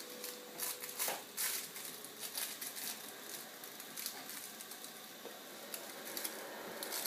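Soft scattered rustles and light taps over a steady background hiss, from a baby moving about in a crib. A faint steady tone sounds during the first second.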